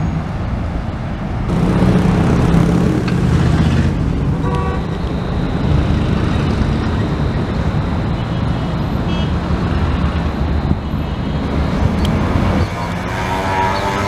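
Busy city road traffic: engines running and tyre noise from passing cars, with a short horn toot about four and a half seconds in. The sound changes abruptly near the end.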